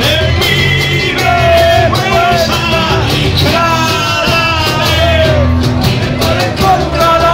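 Live rock band playing: a man singing into a microphone over strummed guitars, amplified through a PA speaker.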